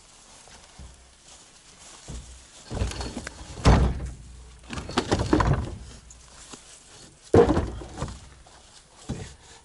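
A series of heavy thuds and knocks with some scraping between them; the two loudest impacts come a little under four seconds in and about seven and a half seconds in.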